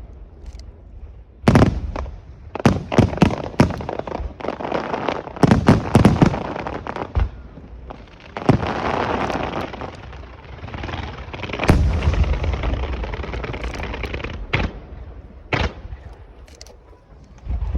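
Aerial fireworks shells bursting overhead: a long irregular string of sharp bangs and deep booms, with stretches of dense crackling between them.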